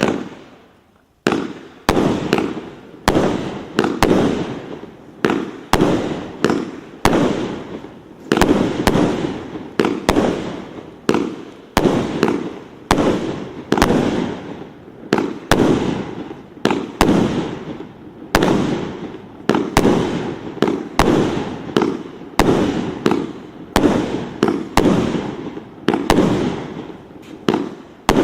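Fireworks display: a steady run of sharp aerial shell bursts, about one a second, each bang trailing off in a rumble that dies away before the next.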